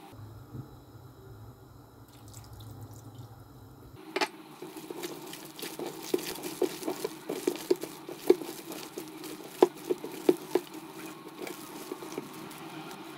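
Gloved hands squishing and squeezing a thick, wet chicken and gram-flour batter in a stainless steel bowl: a quick run of wet squelches and slaps that starts about four seconds in, after a quieter opening.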